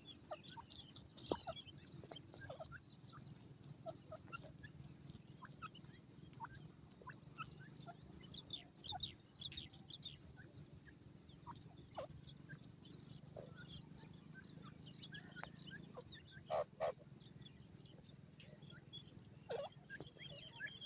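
Young francolin (Dakhni teetar) chicks give soft, scattered chirps and short downslurred peeps as they forage. A pair of louder, lower calls comes about three-quarters of the way through, and another comes near the end.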